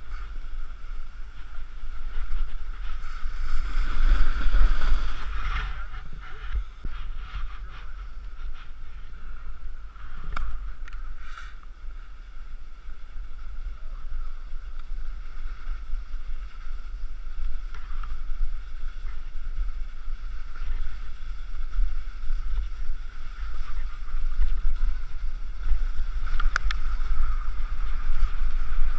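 Snowboard sliding and scraping over packed snow, with wind rumbling on an action camera's microphone. The sliding swells louder for a couple of seconds about four seconds in.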